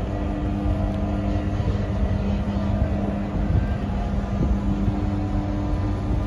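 Large cruise ship departing: a steady low rumble of its engines and machinery, with an even hum held throughout.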